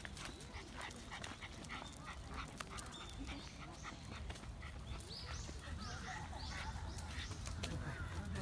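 Footsteps and small clicks on a gravel park path, with a small dog's noises. A quick run of short high chirps comes about two-thirds of the way through.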